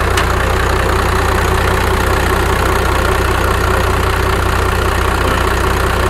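Vehicle engine idling steadily while its charging output is measured.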